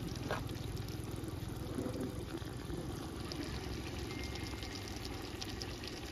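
Chicken curry simmering in a large aluminium pot over a wood fire: a steady bubbling hiss with small pops that grow more frequent about halfway through, over a low steady rumble.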